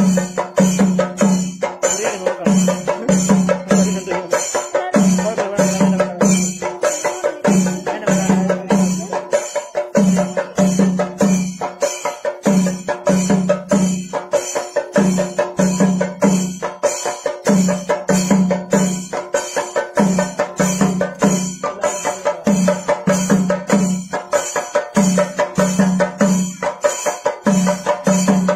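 Percussion-led folk music for the Gopika Nritham dance: a fast, even beat of sharp strikes over a low pulse that repeats in short groups, with steady held tones. A voice sings over it in the first few seconds.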